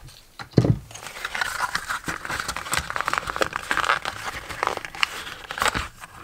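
Knife packaging crinkling and crackling as it is cut open, a steady run of small rustles and clicks, with a thump about half a second in.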